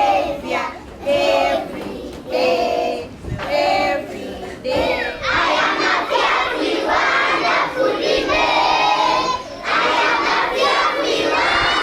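A group of children chanting loudly in unison: a few short separate calls, then from about five seconds in continuous group shouting.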